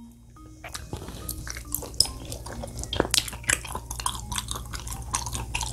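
Close-miked chewing of raw sashimi: wet, sticky mouth clicks and smacks, coming quickly and irregularly from about a second in.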